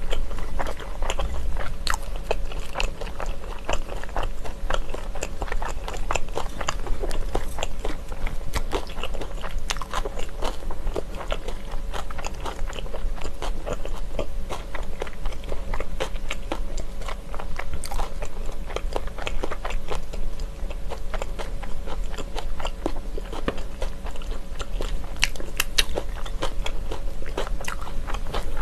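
Close-miked biting and chewing of yangjangpi: crunchy julienned vegetables and glass noodles wrapped in a soft steamed bun, with irregular crunches and wet mouth clicks. A steady faint hum sits underneath.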